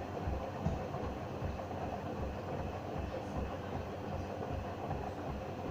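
Hoover washing machine in its rinse cycle, the drum turning in the rinse water with a steady low thump about three times a second.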